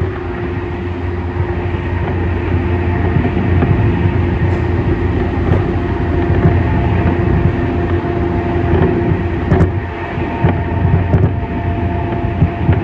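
Inside a JR East E231-series electric commuter train running at speed: a steady rumble of wheels on rail with a steady hum, and a few sharp clicks in the last third.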